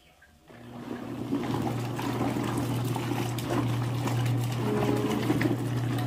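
Queenar Mini bubble washing machine starting its wash about half a second in: a steady motor hum with water churning and sloshing around the clothes in the tub.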